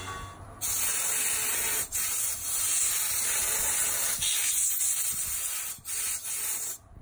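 A loud, high-pitched hiss of spraying air or fluid that starts about half a second in, breaks off briefly a few times and stops just before the end.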